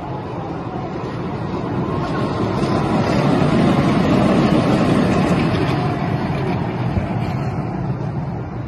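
Roller coaster train running past on its steel track, a rumble that grows to its loudest about four seconds in and then fades as the cars move away.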